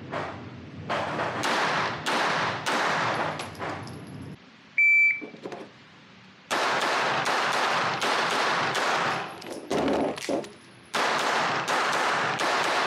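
Rapid pistol fire from a compensated Glock 19 on an indoor range, strings of shots a few per second with echo after each. About five seconds in, a shot timer gives a short high beep, the start signal, and a second or two later the rapid shooting starts again.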